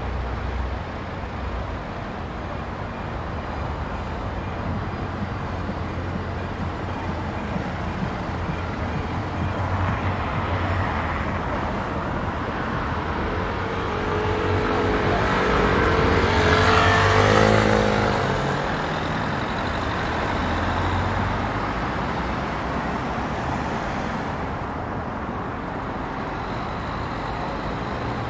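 Steady city road traffic, with engines humming and tyres hissing. A little past the middle one vehicle passes close, growing louder and then fading, its engine note falling as it goes by.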